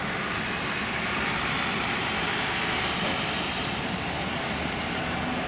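Embraer Legacy 500 business jet on final approach, its twin Honeywell HTF7500E turbofans making a steady rushing jet noise.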